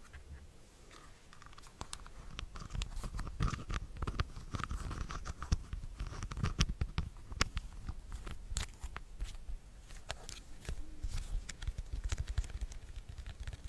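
Close-miked ASMR trigger sounds: dense, irregular clicks, scratches and rustling from hands, nails or mouth right at the microphone, over a low rumble of handling.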